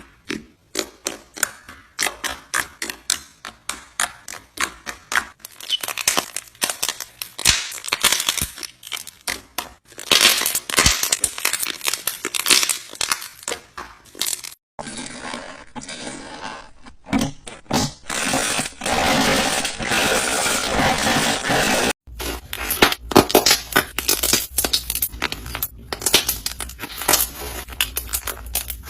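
Slime being squeezed, poked and stretched, giving rapid sticky clicks, pops and crackles, with the sound changing abruptly at cuts about 15 and 22 seconds in.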